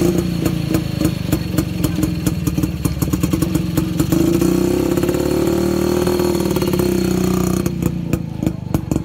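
Vintage motorcycle engine idling with an even, rapid beat. About four seconds in, the revs rise into a smoother, steadier note for a few seconds, then drop back to the idling beat near the end.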